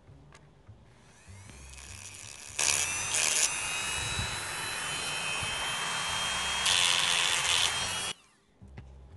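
A small high-speed rotary tool spins up with a rising whine, then runs steadily with a high whine, louder twice as it bites into the work, and stops suddenly about eight seconds in.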